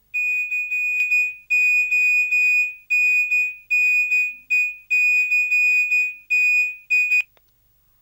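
A high-pitched electronic tone from a smartphone's loudspeaker during an outgoing call that is still ringing out, held for about seven seconds with several short, irregular breaks, then cut off.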